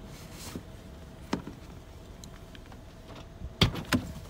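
Footsteps knocking on wooden dock boards: a single knock about a second in and two louder ones close together near the end, over a faint steady hum.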